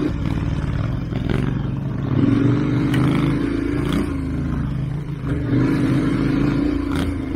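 KTM 1290 Super Adventure R's V-twin engine running under way on a dirt trail. The engine note rises and falls twice as the throttle is opened and eased off.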